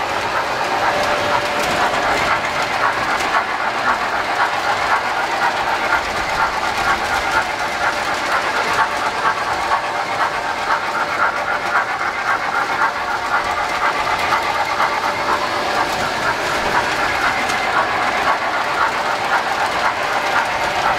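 O gauge three-rail model trains running around the layout: a steady metallic rolling clatter of wheels on the rails and motors humming, with no break.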